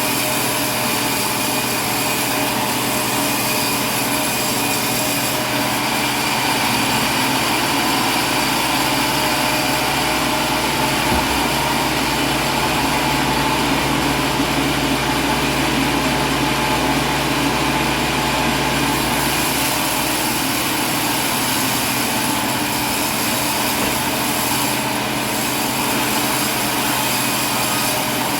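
A steady mechanical drone, an engine or motor running, with several constant tones over it. It grows heavier in the low range from about six seconds in until about nineteen seconds in.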